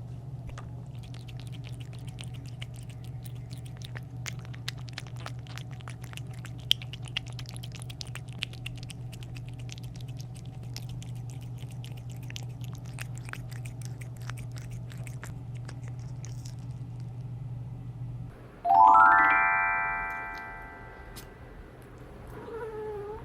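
Cat eating, crunching its food in many small quick clicks over a steady low hum. About 19 s in, the hum stops and a loud, bright run of rising chime-like notes rings out and fades.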